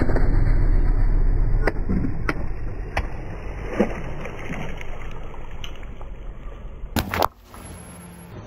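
A car tyre rolls slowly over water-filled balloons, bursting them and splashing water, over a steady low rumble from the car. A few sharp clicks come through, and a short, loud burst about seven seconds in is followed by a quieter stretch.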